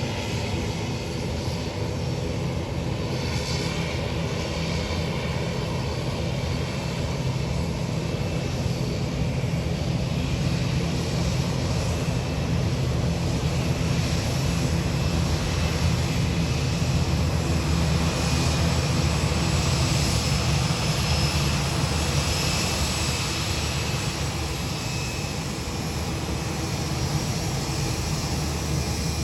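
Boeing 787-8 Dreamliner's jet engines running steadily: a low rumble with a faint high whine above it.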